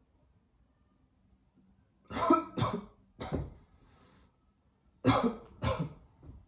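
A person coughing: a burst of three coughs about two seconds in, then two more about five seconds in.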